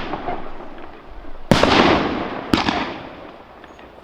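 Aerial fireworks bursting: a sharp bang about a second and a half in and another a second later, each followed by a dense noisy tail that fades away over a couple of seconds, while the tail of an earlier burst dies down at the start.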